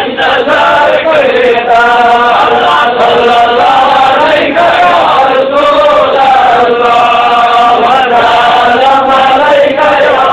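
Male voices chanting a devotional melody, with long held notes that slide from pitch to pitch with hardly a break.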